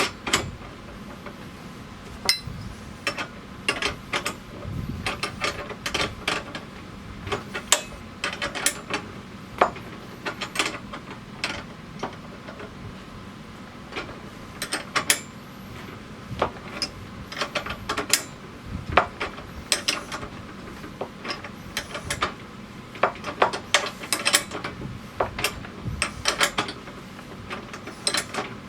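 Wrenches clicking and clinking on metal as a 3/8 bolt and nylock nut are fitted and tightened to hold a seeder's row-marker arm: many short, sharp metallic clicks, irregular and in small bunches.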